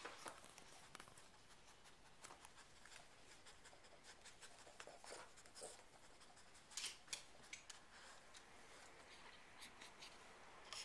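Near silence: faint rustling, with scattered small clicks and scratches and a few louder ones about seven seconds in.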